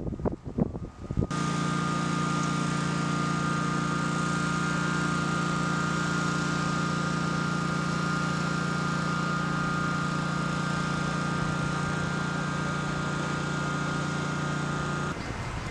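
Wind buffeting the microphone, then a steady machine drone with a constant low hum and a higher whine. It runs unchanged and cuts off suddenly near the end.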